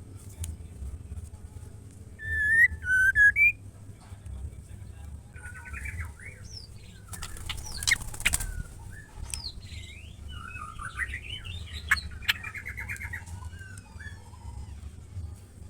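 Female white-rumped shama calling: loud whistled notes about two to three seconds in, then chattering rattles and scratchy phrases. A short rustling burst about halfway through, over a steady low hum.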